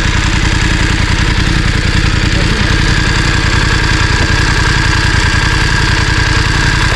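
Voge DS900X's parallel-twin engine idling steadily with an even, unchanging beat.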